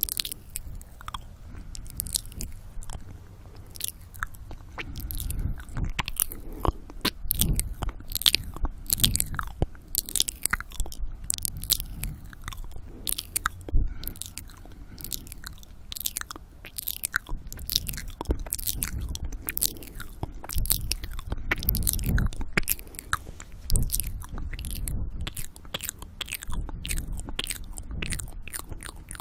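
Close-miked ASMR 'ear eating' mouth sounds: a rapid, irregular stream of wet clicks and smacks from lips and tongue, over heavy breathing on the microphone.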